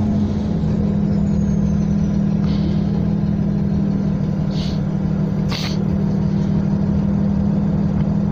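A 2010 Nova Bus LFS city bus under way, heard from inside the passenger cabin: a steady engine and road drone with a strong low hum. A few short clicks or rattles come through, the sharpest about five and a half seconds in.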